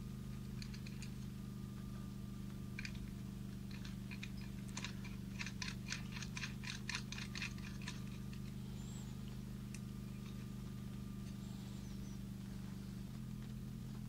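Light metallic clicks from a nut being turned by hand onto a terminal stud of a battery disconnect switch, with a quick run of them in the middle. A steady low hum runs underneath.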